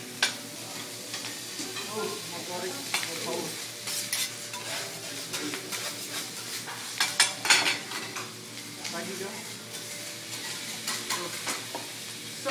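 Food sizzling on a steel hibachi griddle while a chef's metal spatulas scrape and clack against the plate, with several sharp clacks, the loudest about seven seconds in.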